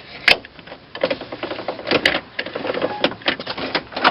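Irregular clicks and knocks of hands and a tool working the truck's inner door handle as it is fastened, with a sharp click just after the start and a denser run of clicks from about a second in.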